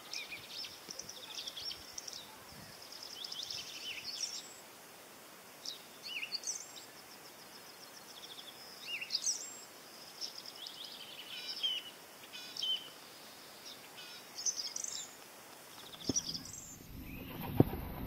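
Small songbirds chirping and singing in short, high-pitched phrases every second or two. Near the end a rush of noise rises, with one sharp knock.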